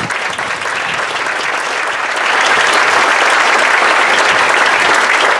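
Audience applauding, the clapping growing louder about two seconds in.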